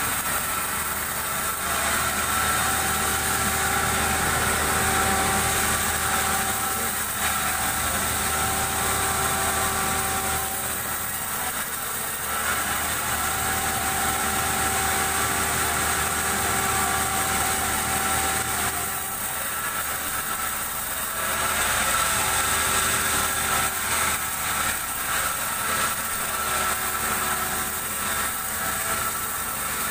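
Sawmill machinery running steadily: the motor-driven saw hums, with steady whining tones that come and go every few seconds.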